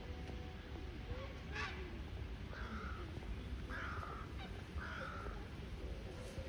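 A large bird gives three short harsh calls about a second apart over a steady low background rumble, with one sharp click about one and a half seconds in.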